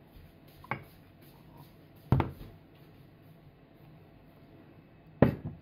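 Three sharp knocks of tableware being set down on a dining table or high-chair tray: a light one under a second in, then two loud ones about three seconds apart.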